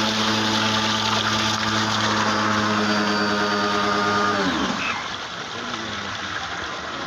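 Water pump running steadily with a low, even hum, then shut off about four and a half seconds in, its pitch dropping as it winds down.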